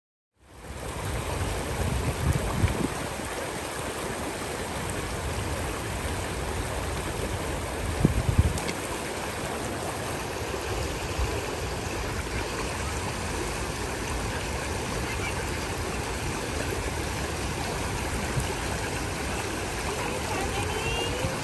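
Shallow mountain creek rushing steadily over stones and gravel, with a couple of brief low bumps about two and eight seconds in.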